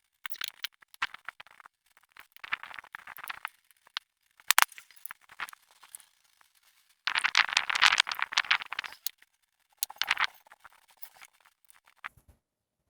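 Irregular handling noises of objects being worked with: short scrapes and rattles with sharp clicks, and a longer, louder scrape about seven seconds in.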